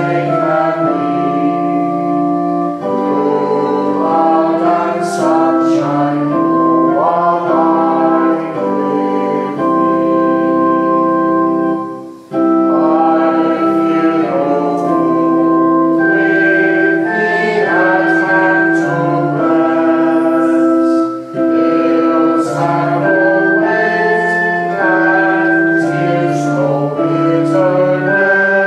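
A congregation singing a slow hymn in held chords, accompanied on a Roland keyboard, with a brief pause between lines about twelve seconds in.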